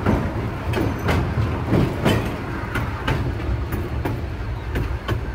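Narrow-gauge passenger train rolling over a steel truss bridge: a steady rumble, with the wheels clacking over rail joints in quick pairs, two or three clacks a second.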